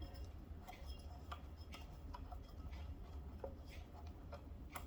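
Faint, irregular small clicks and taps of hand work on the fuel injection control module's cover screws, over a low steady hum.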